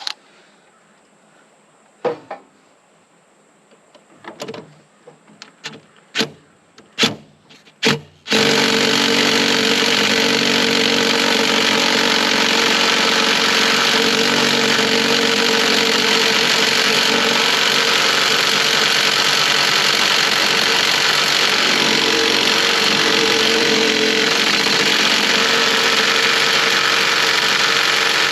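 A few sharp metal clinks of tools being set against a bolt, then about eight seconds in a small impact gun starts up abruptly and hammers steadily and continuously on a seized excavator fan bolt through a 3/8-inch drive extension, failing to break it loose.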